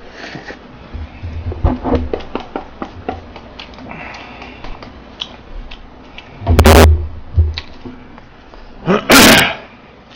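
A person eating spicy cup noodles fast: wet chewing and small clicks throughout, with two loud slurps of noodles, one past the middle and one near the end.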